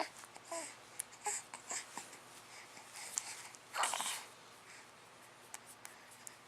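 A pause between hiccups: the tail of a sharp hiccup right at the start, then faint small vocal noises and one short breathy sound about four seconds in.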